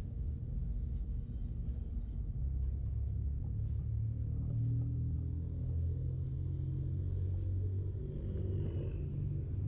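Low, steady rumble of city street traffic, with a motor vehicle's engine swelling and passing in the middle and latter part.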